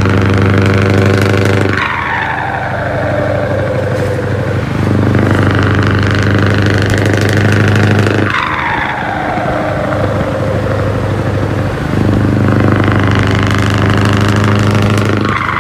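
Scania V8 diesel truck on open exhaust pipes pulling with a steady low drone. It lifts off the throttle three times, and each time a whistle falls away over a few seconds as the turbo spools down, before the engine pulls again.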